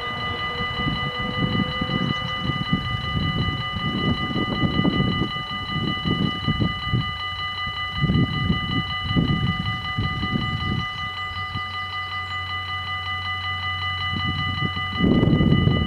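Dutch level-crossing warning bells ringing rapidly and steadily while the crossing's lights flash and its barriers are down, waiting for a train. Irregular low gusts of wind on the microphone rumble underneath, and a louder low rumble starts near the end.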